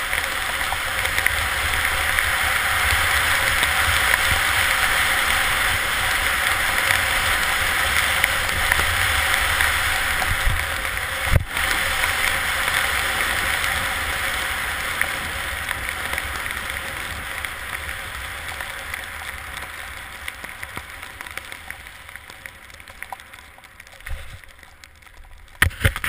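Steady rush of wind buffeting the camera microphone and skis hissing over snow during a straight, no-turn tuck down a ski run. It fades over the last several seconds as the skier slows, with a single knock near the middle and a few sharp knocks near the end.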